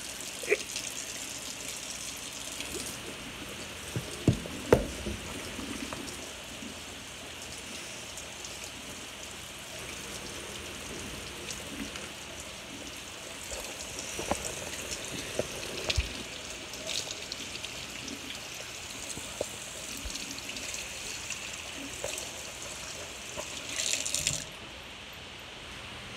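Kitchen tap running steadily into a sink, with a few sharp knocks and clatters of things handled in the sink; the water swells briefly and is then turned off a little before the end.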